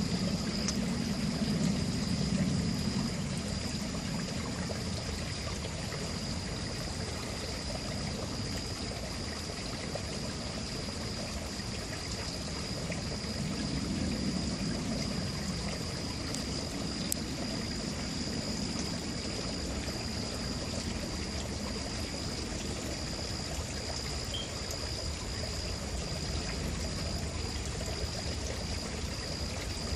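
Low rumbles of distant thunder from a storm a couple of miles off, swelling a few times over a steady outdoor hiss, with a thin steady high tone above.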